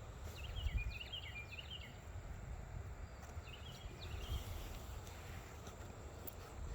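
A small songbird gives two short runs of quick, high chirps, the first about a third of a second in and the second about three and a half seconds in, over a low, uneven rumble of wind on the microphone.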